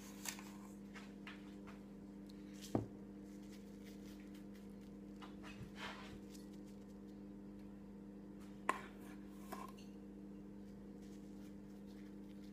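A few light taps and knocks of a sugar shaker and a spoon at a plate of pancake, the sharpest about three seconds in and another near nine seconds, with a brief soft rustle of sprinkling between them, over a steady low hum.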